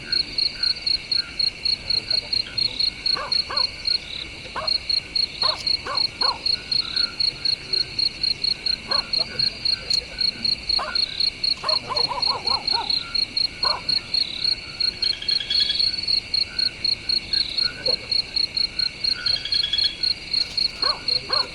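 Crickets and other night insects in a rice field: one chirps in a steady pulse about three times a second over a continuous insect drone, with scattered short lower calls from other animals.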